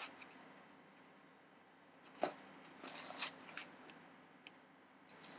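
Measuring cup scooping rice flour from a clear plastic tub: a sharp click about two seconds in as the cup knocks the tub, then a quick cluster of soft scrapes and taps a second later, with a few lighter ticks after.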